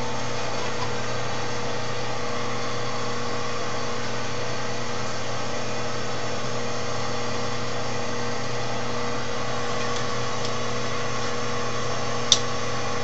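Wood lathe motor running steadily with a constant hum, the spinning blank not yet being cut. One short click near the end.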